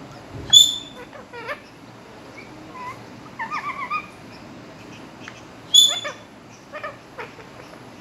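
Indian ringneck parrot giving two loud, shrill squawks, about half a second in and just before six seconds, with quieter warbling chatter between them.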